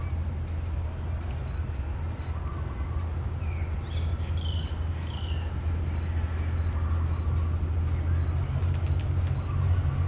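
Low steady drone of approaching GE diesel-electric locomotives, growing slightly louder toward the end, with birds chirping over it.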